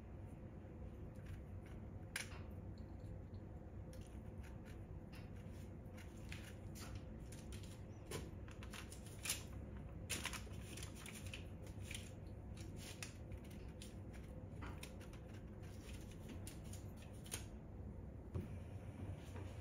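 Scattered light clicks and rustles of fingers picking chopped almonds from a ceramic bowl and dropping them onto cookie dough on parchment paper, over a low steady hum.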